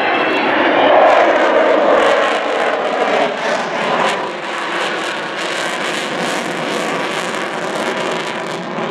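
Avro Vulcan B2 bomber's four Olympus jet engines running under power as it flies a display pass. A whine near the start fades and the jet noise is loudest about a second in, then goes on as a steady, crackling rumble.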